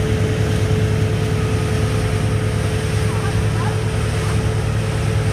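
Motorboat engine running steadily at speed, a constant low drone with a steady whine above it, over the rush of churning wake water and wind on the microphone.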